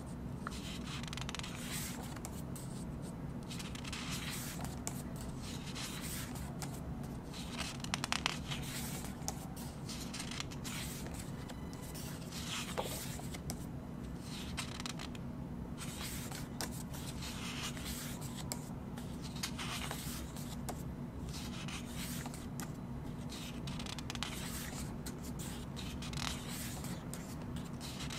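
Pages of a CD album's photo book being turned by hand one after another, with repeated short paper rustles and slides. A steady low hum sits underneath.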